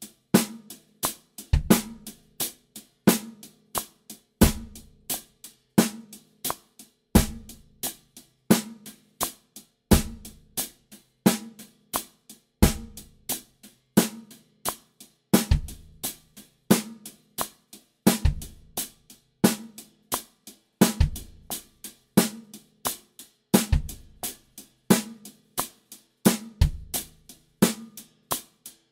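Drum kit playing a steady groove: eighth notes on the hi-hat, accented snare backbeats on 2 and 4, and one bass drum note per bar that lands on a different sixteenth-note position as the exercises change.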